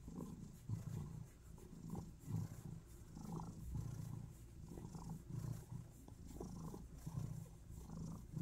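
Orange-and-white domestic cat purring while being scratched on the cheek and neck, a faint low purr in a steady pulsing rhythm.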